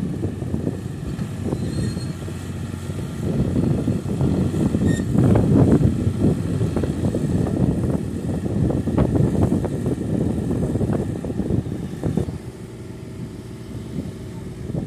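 Fiat 480 tractor's diesel engine running. It is louder through the middle and drops to a steadier, lower running about twelve seconds in.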